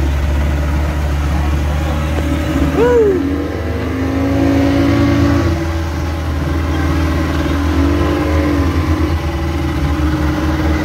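Speedboat's outboard motors running under way through choppy sea, a steady drone. Its pitch briefly swoops up and back down about 3 s in and again near 8 s.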